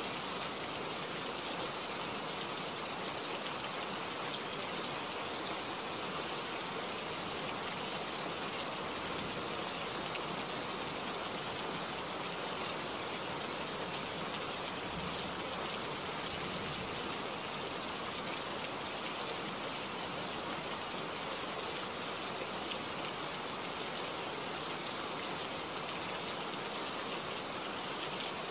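Steady rain falling, an even hiss that goes on without a break.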